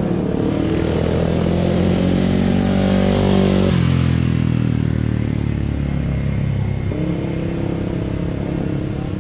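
Motorcycle engines running at low revs. One drops abruptly in pitch about four seconds in, and another engine comes in about seven seconds in.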